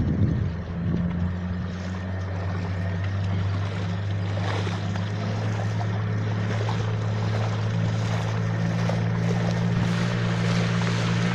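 Motorboat engine running steadily at an even pitch, with wind and water rushing past.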